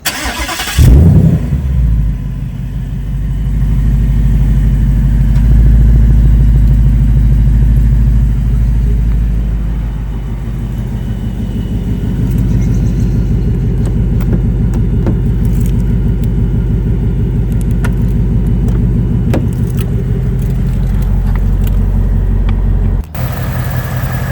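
A 2019 Ford Mustang GT's 5.0-litre Coyote V8 cold-starting: a short crank, the engine catches with a loud flare about a second in, then runs at a high cold idle that settles lower around ten seconds in. The owner hears none of the typewriter tick these engines are known for, and takes its absence for the oil additive having cured it. Near the end the sound changes abruptly to another microphone's pickup of the idle.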